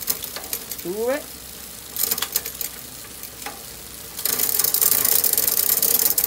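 Mountain bike drivetrain turned by hand: the chain running over the 7-speed rear cassette and derailleur with a fast hissing whirr and ticks, as the gears are shifted up. It pauses about two and a half seconds in and comes back louder about four seconds in.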